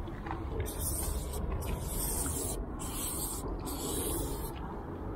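Aerosol spray-paint can hissing in four bursts of about a second each, with short gaps between, as a graffiti outline is sprayed onto a metal train wagon. A low steady rumble runs underneath.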